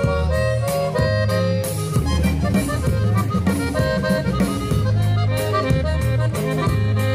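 Live norteño band playing an instrumental passage between verses: an accordion melody over guitars and a repeating bass line with a steady beat.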